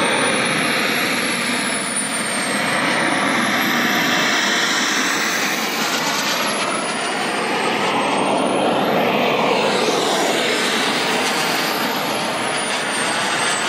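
Turbine engine of a Carf MiG-15 R/C model jet in flight: a steady jet rush with a high whine that rises and falls in pitch three times.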